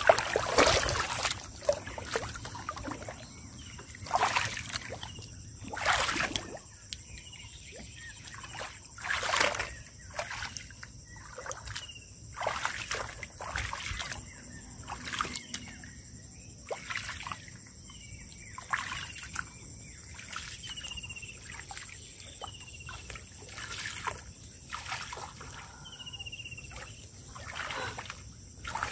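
Hands splashing and sloshing in shallow muddy paddy-field water, a string of separate wet splashes, loudest in the first second, with a steady high hiss in the background.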